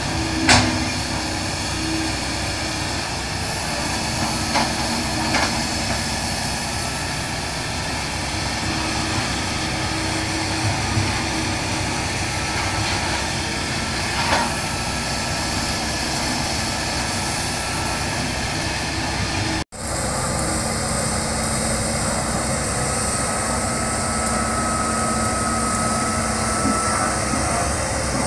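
Hitachi hydraulic excavator's diesel engine running steadily as it clears brush and digs, with a few sharp knocks.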